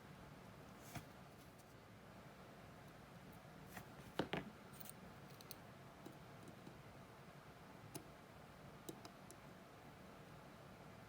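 Near silence broken by a few small sharp clicks of metal watchmaker's tools against watch parts, the loudest a short cluster of two or three clicks about four seconds in.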